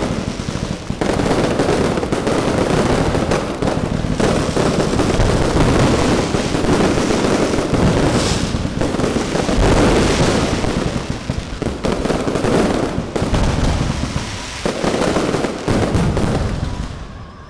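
Fireworks going off in a dense, continuous barrage of bangs and crackles that dies away at the very end.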